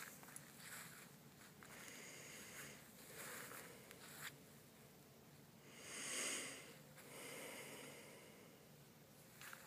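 Near silence with a few faint rustles in the first few seconds and a soft whoosh that swells and fades about six seconds in.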